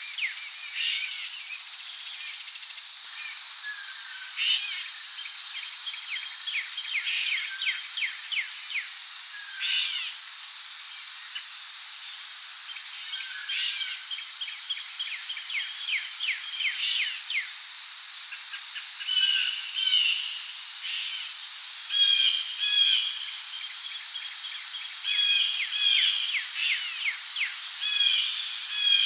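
Rainforest ambience: a steady high insect drone with many birds calling over it, short chirps and quick trilled phrases, busier in the second half.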